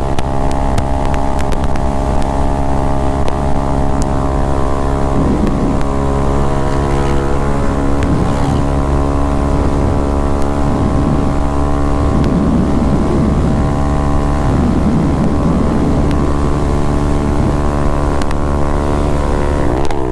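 Honda CG 160 Titan's single-cylinder four-stroke engine running at steady high revs while cruising at speed, with wind buffeting the microphone. Near the end the revs drop as it slows.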